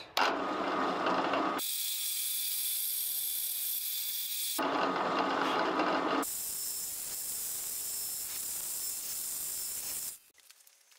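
Bench drill press running, its twist bit boring into a wooden ring. The sound changes abruptly several times between a lower, fuller noise and a hissier, higher one, then stops suddenly near the end.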